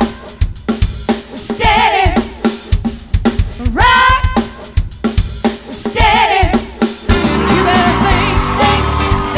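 Live soul band playing without a lead vocal line: a drum kit keeps a groove of snare and bass drum hits with short pitched stabs between them. About seven seconds in, the music changes to sustained chords over a steady bass line.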